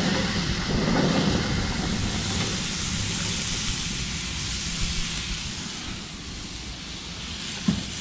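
Steady hissing rush of a preheated gas grill's burners, while sliced mushrooms and onions are tipped from a bowl onto a perforated metal grill pan.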